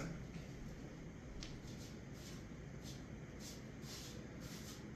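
Quiet room with a string of faint, soft rustles, about one every half second.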